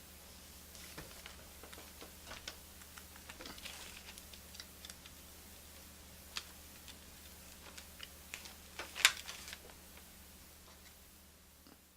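Irregular small clicks, taps and knocks of metal and plastic parts being handled as a phonograph turntable motor is fitted back into the turntable, with one louder knock about nine seconds in.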